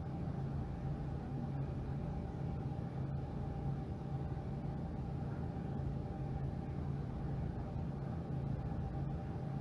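Mercedes-Benz Citaro G articulated bus's OM457hLA straight-six diesel engine (Euro 2) running steadily. It is an even low drone with a fainter higher tone over it, with no change in speed.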